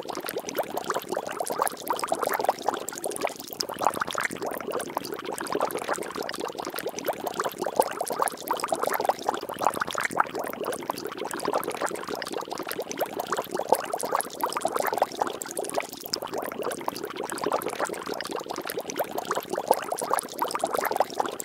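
Water bubbling and splashing steadily: a dense, unbroken crackle of many small droplets.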